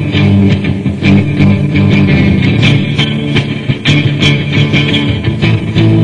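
Funk rock band playing an instrumental passage: bass guitar and electric guitar over a steady drum beat.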